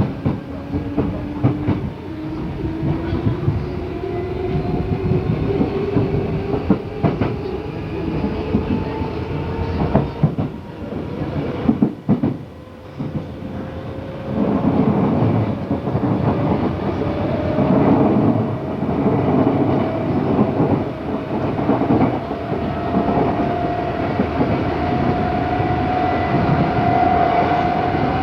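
Odakyu 8000 series field-chopper electric train heard from aboard, its traction motors whining in a tone that climbs steadily as the train accelerates. Under the whine run wheel-and-rail rumble and rail-joint clatter, which grow rougher and louder about halfway through.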